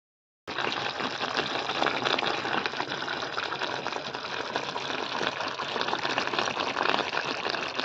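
Thick smoked-pork and axone gravy bubbling and sputtering in an aluminium pot on the stove: a steady hiss full of small rapid pops. It starts about half a second in.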